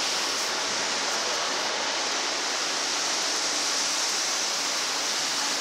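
Steady rushing hiss of a public aquarium hall's background noise, such as tank water circulation and air handling, unbroken throughout.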